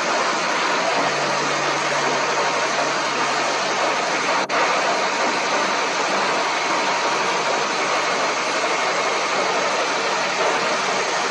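Combine harvester running steadily at work, an even mechanical roar with a low steady hum. The sound drops out for an instant about four and a half seconds in.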